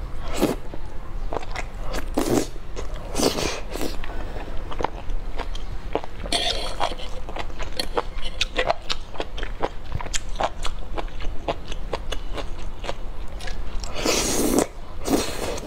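Close-up eating of enoki mushrooms in chili sauce: strands pulled into the mouth with short slurps, then chewed with many small crisp crunching clicks.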